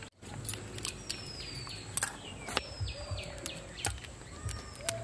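Small scattered clicks and snaps as the claw-like tips of crab legs are broken off by hand and dropped onto a steel plate. A bird whistles three times, each call falling in pitch.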